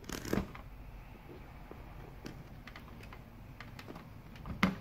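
Light clicks and handling sounds from a digital multimeter's rotary selector dial being turned and its test probes being handled, with a short rustle at the start and a sharper click near the end.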